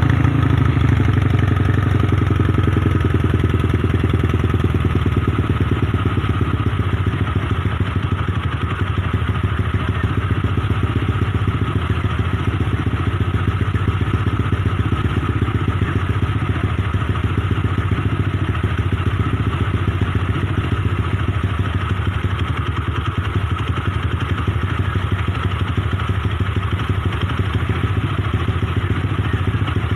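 Motorcycle engine, built with a 65 mm bore block and a 4 mm stroker con rod, idling steadily with an even pulsing note.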